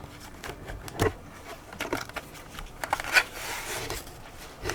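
Handling noises: scattered clicks and knocks, with a short rustle about three seconds in.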